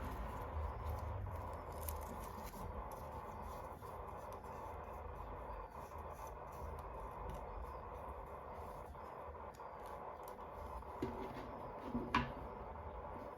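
Small toy packaging being handled: soft taps, scratches and light clicks of plastic, with a few firmer knocks and one sharp click near the end, over a faint steady hum.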